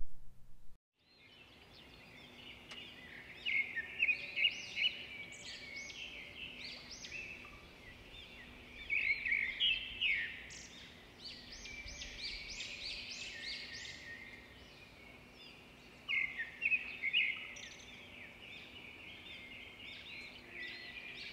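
Many small birds chirping and twittering together in a dense chorus, swelling in louder bursts now and then, over a faint steady hum.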